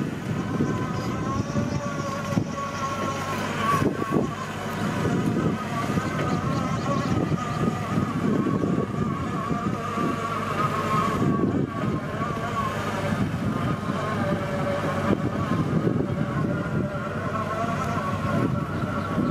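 CAT 312 excavator's diesel engine running steadily, with a wavering high whine over its rumble.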